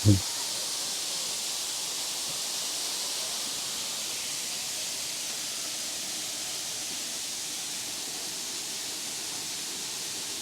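Steady rushing of a waterfall cascading over rock ledges, an even hiss without change.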